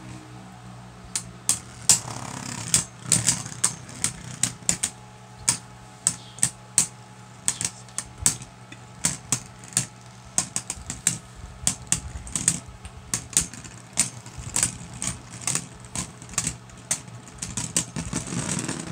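Two Beyblade Burst spinning tops, Cyclops and a Fafnir, clashing again and again in a plastic stadium: sharp plastic clacks, irregular, about two or three a second.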